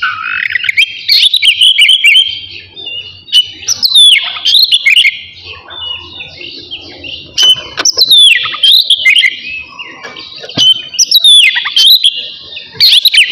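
Oriental magpie-robin (kacer) singing loud, varied whistled phrases with fast up-and-down pitch sweeps, in bursts every three to four seconds.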